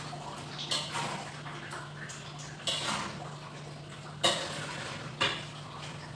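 A metal cooking utensil clinking and scraping against a pan on the stove: a handful of sharp, irregularly spaced knocks over a steady low hum.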